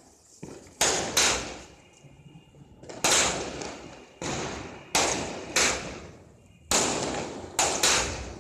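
Fireworks going off in a string of about nine sharp bangs, irregularly spaced and some in quick pairs, each trailing off with an echo.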